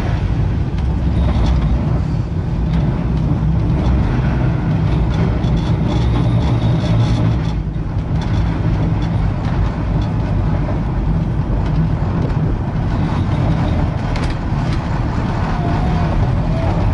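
Blackpool 'Western Train' heritage tram running along the promenade tramway: a steady low rumble of the car rolling on the rails.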